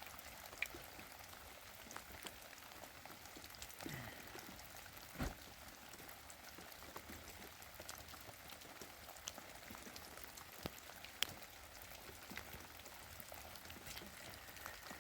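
Steady rain hissing faintly, with scattered sharp ticks of drops striking.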